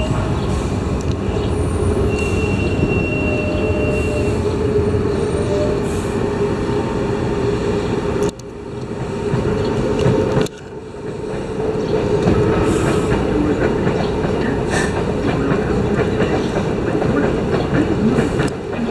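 Washington Metro Red Line train pulling into a station platform and slowing to a stop: a steady loud rumble of wheels on rail with a constant tone, thin brake or wheel squeals in the first few seconds, and some clickety-clack. The sound drops suddenly twice near the middle and builds back each time.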